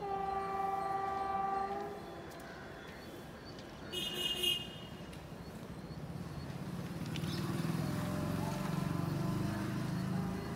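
An approaching Indian Railways electric train sounds its locomotive horn in one steady blast of about two seconds. A brief shrill sound follows about four seconds in, then the low rumble of the train builds steadily as it draws nearer.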